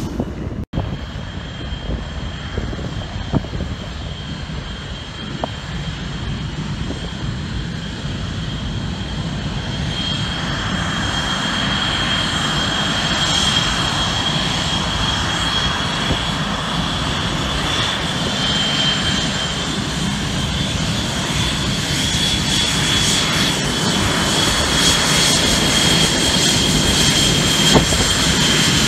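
Jet engines of Blue Angels F/A-18 Hornets running as the jets taxi. A steady rumble carries a high, thin whine that grows stronger partway through, and the sound gets louder toward the end.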